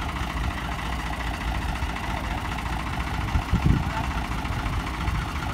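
Tractor diesel engine idling steadily, with a brief thump about three and a half seconds in.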